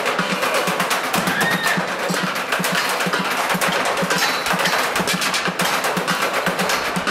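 Percussive music: a fast, even clicking rhythm over a steady pulsing low beat.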